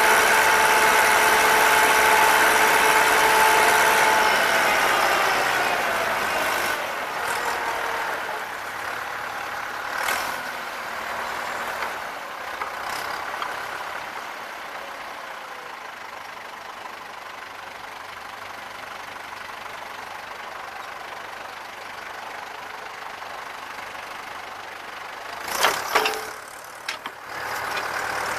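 Vintage tractor engine running steadily while pulling a mounted reversible plough, louder for the first few seconds and then easing off. Near the end, a few sharp metallic clanks as the plough is turned over.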